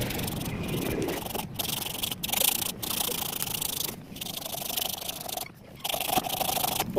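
Abrasive rubbing on a coconut shell, as in sanding, going in runs of strokes with brief breaks between them.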